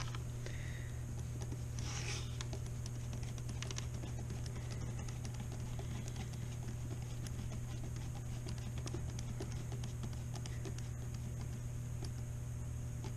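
Light clicks and scrapes of a hex driver and small plastic parts as a ball-joint stud is screwed back into an RC truck's suspension, with a short scrape about two seconds in. A steady low hum runs underneath.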